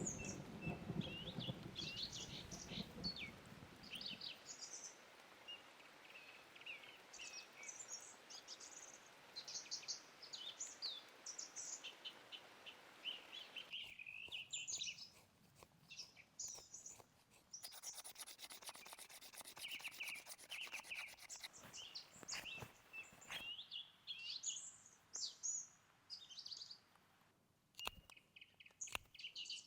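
Many rainforest birds chirping and calling in short notes that rise and fall. The low rumble of thunder dies away in the first few seconds, and the steady hiss of rain stops about halfway through. Scattered short clicks and rustles follow.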